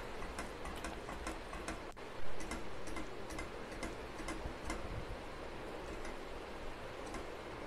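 A silicone spatula stirring a thick, simmering milk, sugar and mashed paneer mixture in a steel pot, making light ticks about two or three times a second over a steady hiss. The ticks fade out after about five seconds.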